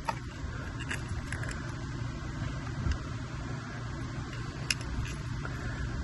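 Small clicks and rattles of e-bike wires, bullet connectors and a metal controller box being handled, a few sharper ticks among them, one about three seconds in and one near the end, over a steady low rumble.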